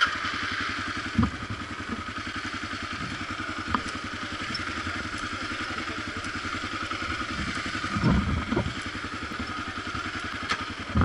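Kawasaki KLR650's single-cylinder four-stroke engine running steadily at idle, with a few light knocks and clatters over it.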